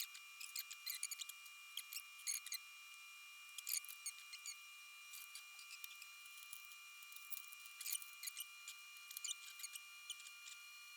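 Irregular light clicks, ticks and rustles of cables and plastic being handled and tucked during PC cable management, coming in small clusters with short gaps.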